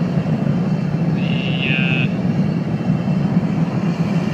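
Blower-fed burner of a wootz crucible furnace firing with a steady low roar, mid-melt with one blower running. A brief high-pitched sound cuts in about a second in.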